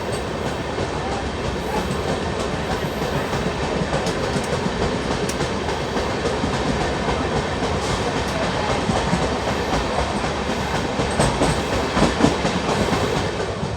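Moving passenger train running on the track: a steady rumble and rattle of the wheels and carriages, with a few sharper clanks near the end.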